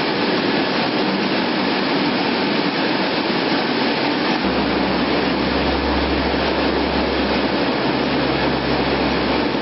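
Steady, loud noise of jet aircraft engines running, with a low hum joining about four and a half seconds in.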